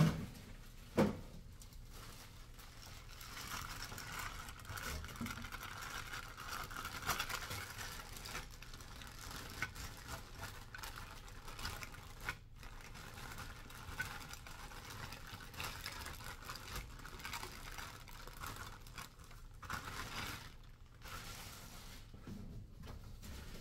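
Clear plastic parts bag crinkling and rustling as it is handled and rummaged through, with a sharp knock about a second in.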